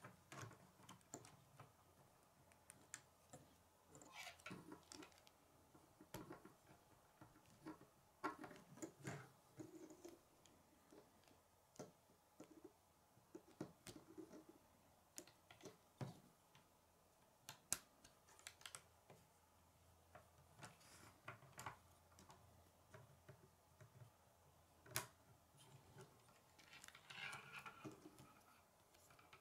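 Plastic K'nex rods and connectors being fitted together by hand: quiet, irregular sharp clicks and snaps with brief rustling of the pieces.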